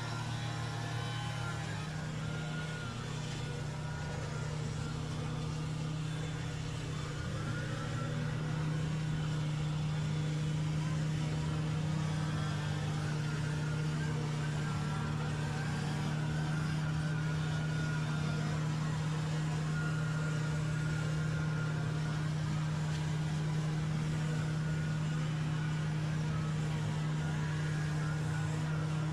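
An engine running steadily with a constant low hum, growing a little louder about eight seconds in.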